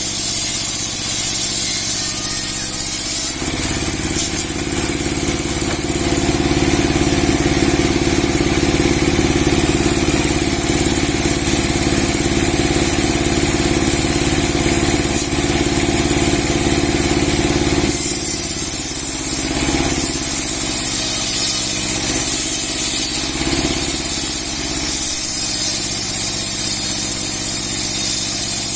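Sawmill driven by a 30 hp engine running a 60 cm steel saw blade, with a steady engine drone and a high hiss throughout. About three seconds in the sound turns heavier and rougher as the blade takes a load, holding until about eighteen seconds, then lightens with a few uneven swells.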